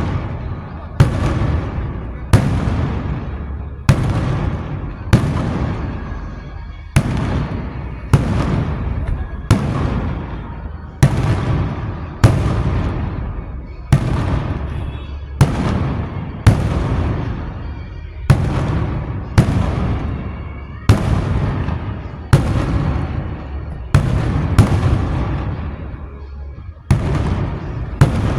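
Fireworks going off one after another, about a sharp bang every second or so, each trailing off in a long fading echo.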